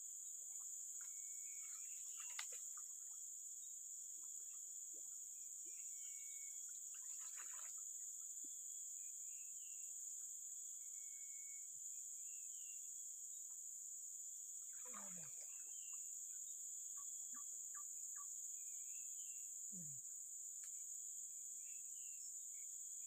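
Steady high-pitched insect drone, with short faint bird chirps scattered through it.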